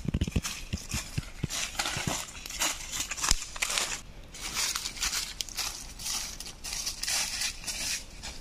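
Footsteps crunching and rustling through dry fallen leaves on a forest floor, in an uneven walking rhythm, with a few duller low thuds in the first two seconds.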